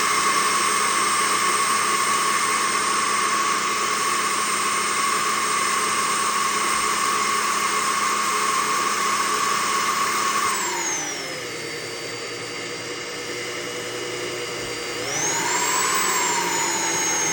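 Electric drill with a 1/4-inch diamond bit drilling through a ceramic plate, its motor a steady high whine. About ten seconds in the whine slides down to a lower speed, holds there for several seconds, then climbs back up.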